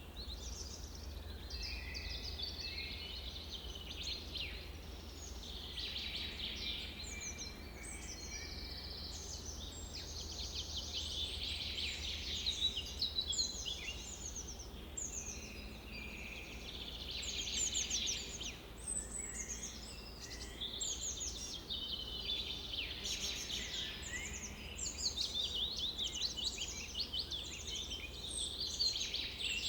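Many birds chirping and singing at once, a dense, continuous chatter of quick trills and chirps, over a low steady rumble.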